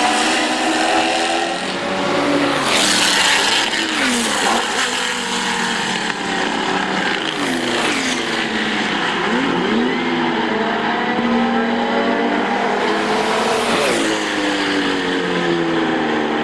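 Several classic endurance racing cars passing under power, their engines rising and falling in pitch through gear changes. The loudest pass-bys come about 3, 8 and 14 seconds in.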